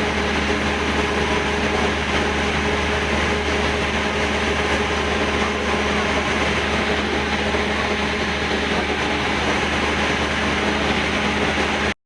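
Large building generator running steadily under load: an unbroken engine drone with a steady low hum beneath it.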